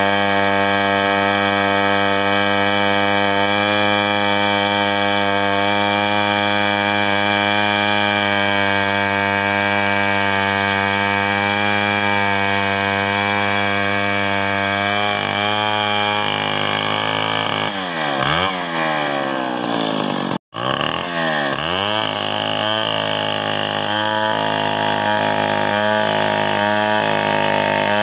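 Chainsaw running hard, ripping lengthwise through a coconut palm log in freehand milling, at a steady pitch for about sixteen seconds. Then its revs fall and climb sharply a few times, there is a brief gap about twenty seconds in, and the saw runs on with its speed shifting up and down in small steps.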